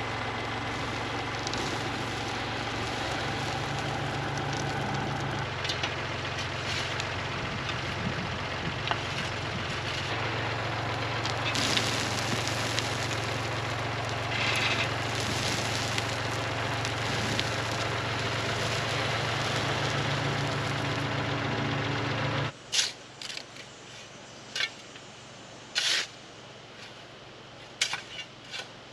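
Compact tractor engine running steadily while its front loader dumps fill, with the rush of spilling dirt twice around the middle. The engine sound cuts off abruptly about 22 seconds in, and a few short scrapes and clunks of a shovel working fill follow.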